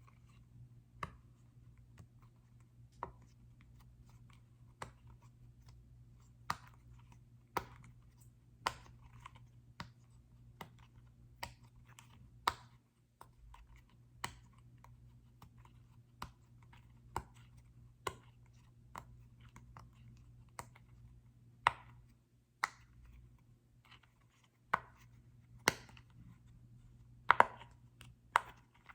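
Sharp clicking taps on a small soccer-ball-shaped object, one at a time at irregular intervals about a second apart, some louder than others, over a faint steady hum.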